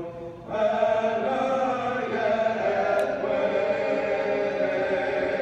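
A vocal quartet singing a cappella in close harmony. A new chord starts about half a second in and is held long and steady.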